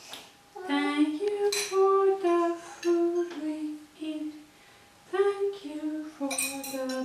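Children singing a simple tune in short held notes that step up and down, breaking off briefly a little past halfway and then starting again.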